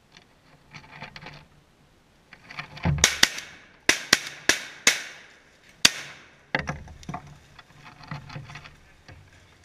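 Shotgun shots at ducks in a quick string, about six sharp cracks in three seconds starting about three seconds in, with softer pulsing sounds before and after.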